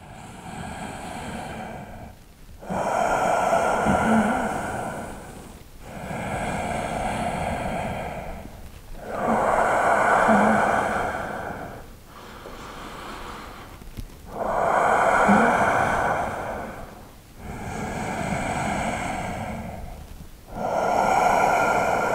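A man's slow, deep breathing, each inhale and exhale drawn out over about three seconds, every other breath louder; roughly four full breaths while he holds a deep standing forward bend.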